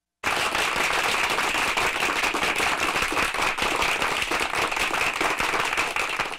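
A crowd clapping: dense, steady applause that starts abruptly a moment in and cuts off suddenly at the end.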